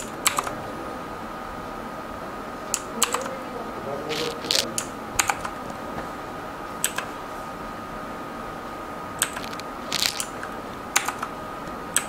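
Mechanical key switches (Outemu) of a Zebronics Max Pro keyboard clicking as Fn key combinations are pressed to change the lighting mode. About a dozen separate keystrokes come at irregular intervals, some in quick pairs, over a faint steady high tone.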